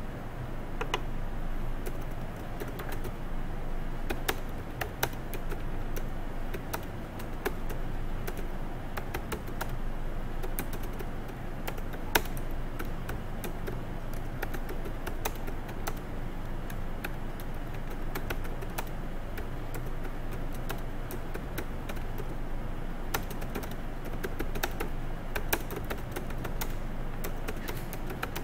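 Computer keyboard being typed on: irregular quick key clicks, coming thicker toward the end.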